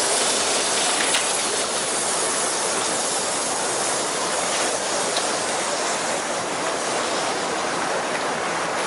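Steady traffic noise from a busy multi-lane avenue: an even hiss of passing vehicles, with no single vehicle standing out.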